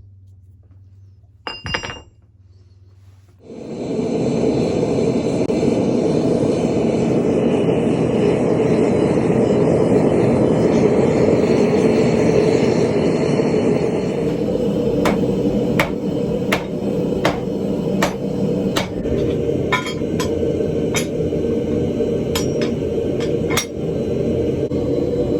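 A single ringing clink of metal, then a forge starts running with a loud steady rush; from about halfway, hammer blows fall on the anvil at an even beat of a little more than one a second over the forge noise.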